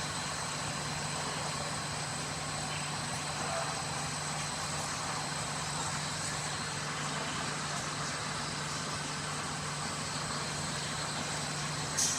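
Polyester wadding carding machine running: a steady mechanical din with a low hum and a thin, high steady whine, and one short sharp click near the end.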